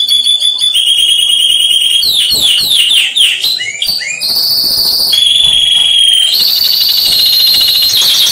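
Recorded songbird calls played loudly through a home-built bird-training amplifier and tweeter: long high whistled notes held steady, broken up by rapid sweeping chirps about two seconds in and a fast trill near the end.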